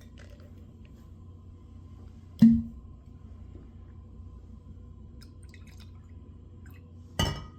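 Whiskey being poured into a glass with small drips and trickles. A sharp glass-on-glass or glass-on-counter knock comes about two and a half seconds in, and another near the end.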